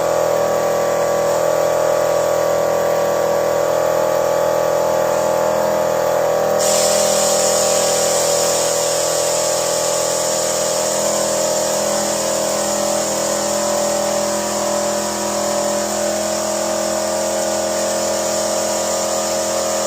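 Car engine running steadily with a strong, even whine over it during an engine carbon-cleaning flush. A hiss joins suddenly about six and a half seconds in and carries on.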